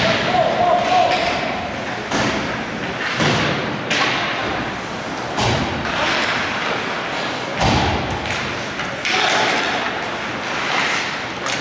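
Ice hockey play in an echoing arena: several heavy thuds against the boards over the steady rink noise, with players shouting.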